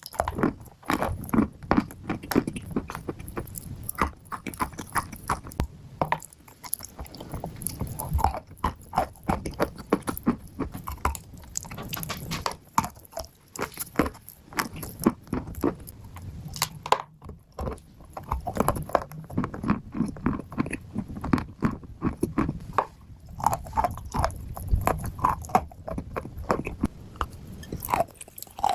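A person biting and chewing hard, crunchy clay close to the microphone: a continuous run of sharp, irregular crunches.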